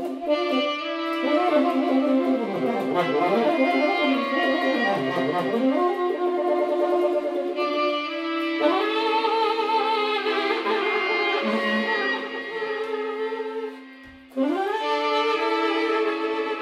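Free-jazz tenor saxophone played through sound effects: swooping, bending pitches layered over a held low drone. The sound drops away briefly near the end, then a new sustained note comes in.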